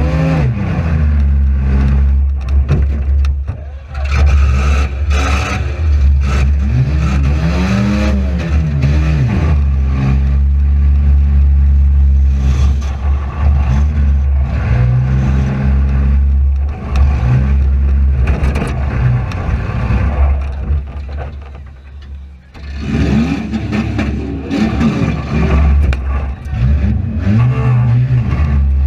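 Front-wheel-drive demolition derby car's engine revving up and dropping back again and again under a heavy low rumble, with scattered bangs of hits, most of them in the first few seconds.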